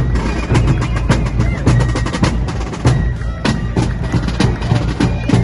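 A parade marching band's drums playing: quick, tightly spaced snare drum strikes and rolls over steady bass drum beats.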